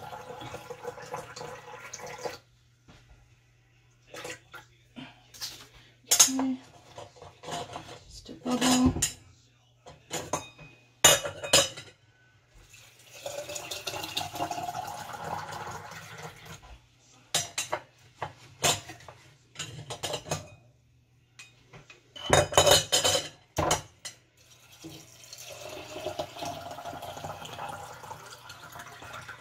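Liquid poured from a pot through a stainless steel canning funnel into glass mason jars of dry lentils and beans, in three stretches, filling them to headspace for pressure canning. Between the pours come sharp metal clanks and clinks as the pot and funnel knock against the jar rims.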